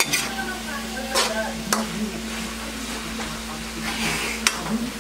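A metal spoon stirring and scraping sautéed banana heart around a metal wok, with a few sharp clanks of spoon on pan over a soft frying sizzle.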